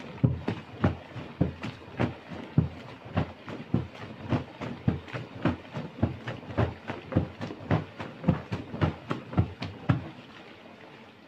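Fresh tofu curds thudding in a cloth as it is shaken back and forth over a draining frame to drain off the whey, about three dull thuds a second. The shaking stops near the end.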